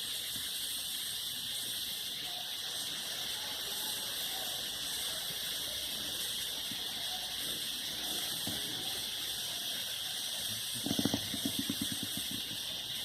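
Pit bull snoring: a short rattling snore near the end over a steady hiss.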